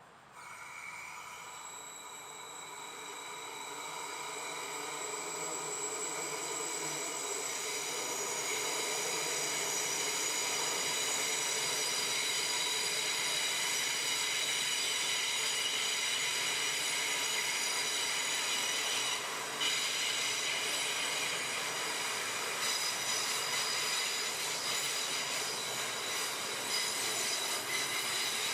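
Train brakes squealing: a high, shrill screech of several steady tones at once. It swells over the first several seconds and then holds loud, with a brief dip about twenty seconds in.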